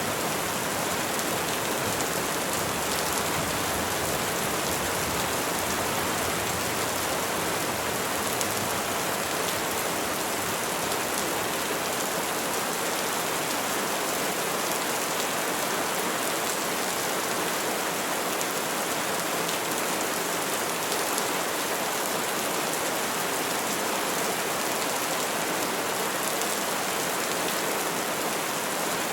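Steady, even rainfall pattering on tree foliage, a dense continuous hiss of drops.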